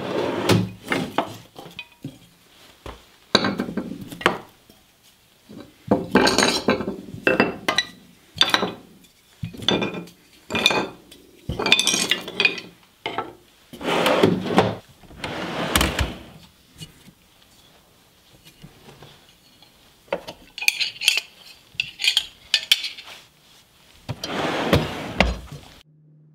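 Wooden workbench drawer being slid and steel carving tools clinking and clattering against each other and the wood as they are picked through, in uneven spells of noise with short pauses. The sound cuts off abruptly near the end.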